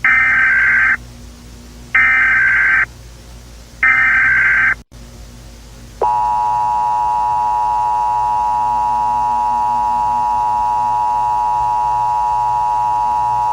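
Emergency Alert System (EAS) SAME header: three one-second bursts of screechy data tones, two seconds apart. About six seconds in, the steady two-tone EAS attention signal starts and holds for about eight seconds, with many overtones.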